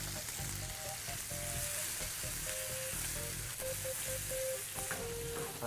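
Small potatoes and mushrooms sizzling in oil in a frying pan over a gas burner, a steady frying hiss, with soft background music.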